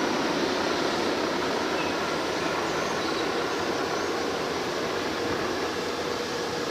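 Aircraft engine roar, a steady rushing noise that slowly fades, with a faint steady whine coming in about five seconds in.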